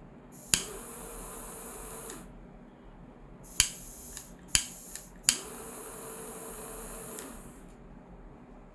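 Glock-shaped jet-flame butane lighter being fired: a sharp click, then the jet flame hissing steadily for about a second and a half. A few more sharp clicks follow midway, the last one setting off another steady hiss of about two seconds.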